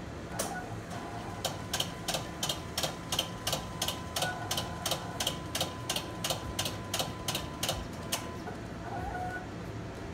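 Mimaki JV33-130 wide-format inkjet printer running its start-up initialisation: a regular mechanical clicking, about three clicks a second, with a faint steady high tone beneath. It stops about eight seconds in.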